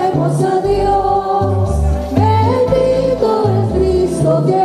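A group of women singing together in harmony into microphones, holding long notes, over a bass line that steps from note to note.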